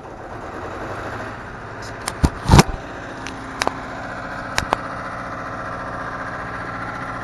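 Engine-drive welding machine's engine running steadily, growing louder over the first second or so. A few sharp clicks and knocks sound over it about two to five seconds in.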